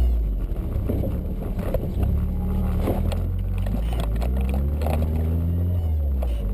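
Nissan S13's engine running under load, its pitch rising and falling as the throttle is worked.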